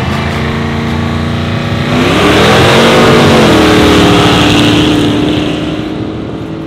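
A V8 drag car's engine running at full throttle. It grows loudest from about two seconds in, its pitch climbing and then dropping back to a steady lower note as the sound fades.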